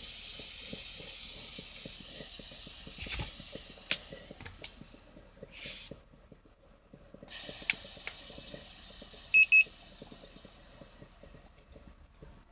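Drip coffee maker hissing as it brews, with faint irregular ticking underneath. The hiss stops for about two seconds midway, then resumes and fades out. Two short high beeps sound about nine seconds in.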